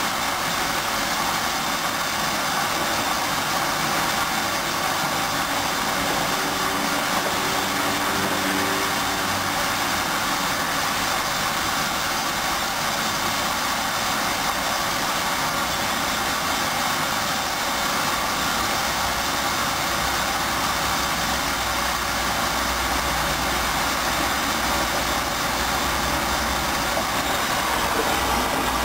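Hoover washing machine running a duvet wash, a steady mechanical whirring noise, with a deeper rumble coming in about two-thirds of the way through.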